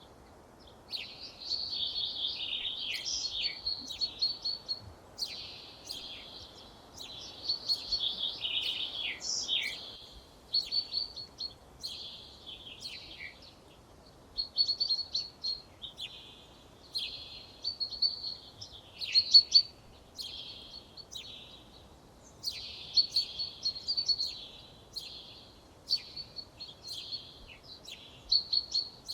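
Songbirds singing outdoors: phrases of quick, high, chirping notes, each lasting a second or two with short pauses between, over a faint steady background hiss.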